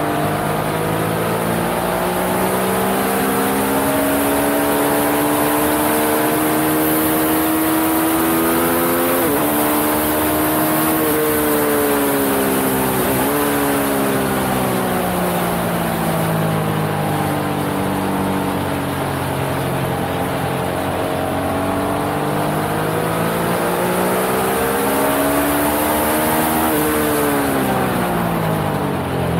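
Yamaha XSR900's inline three-cylinder engine under hard track riding: the revs climb for about nine seconds, drop sharply at a quick upshift and again a few seconds later, fall away for several seconds, then climb again and drop steeply near the end. Wind rush on the microphone runs underneath.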